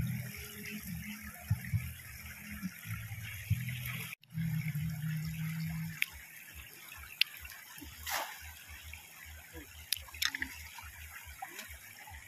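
Shallow river water rushing steadily around people wading in it, with a few short splashes in the second half. A low steady hum sits under it and stops about six seconds in.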